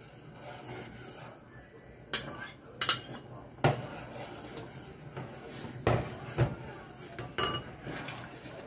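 A spoon stirring soup in a stainless steel saucepan, scraping faintly with about six sharp clinks against the pot.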